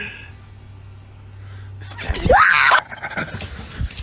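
A faint low hum, then about two seconds in a loud scream-like cry that rises and falls in pitch, followed by rustling and knocking.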